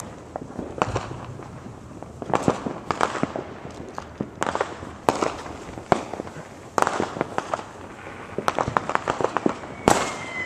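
Many fireworks and firecrackers going off at once: sharp bangs and rapid crackling pops in clusters every second or so, with a short whistle near the end.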